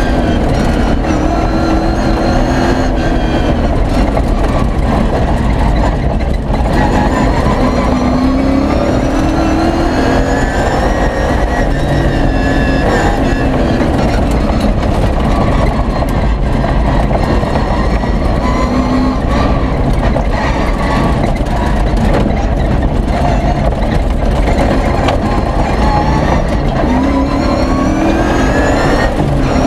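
Competition off-road 4x4's V8 engine at speed, heard inside the cab, revving up through the gears: the pitch climbs and drops at each shift, several times over, over a steady rumble of tyres on gravel.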